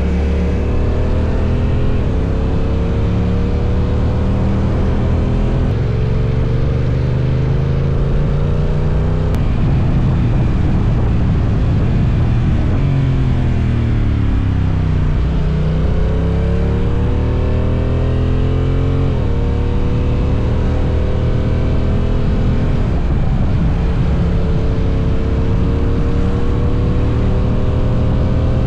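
Honda NT1100's 1084 cc parallel-twin engine heard from the saddle while accelerating on the open road. Its pitch climbs and drops back again and again as it shifts up through the gears, over a steady rush of wind and road noise.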